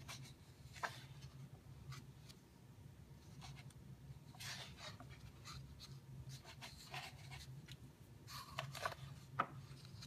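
Quiet paper sounds of hands turning and smoothing the pages of a large hardcover book. Several rustling swishes, the clearest about halfway through and near the end, and a few sharp ticks over a steady low hum.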